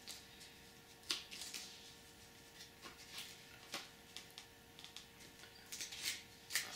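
Packaging of a boxed disc set being handled and turned over: faint scattered rustles and clicks, with the sharpest ones about a second in and near the end, over a faint steady hum.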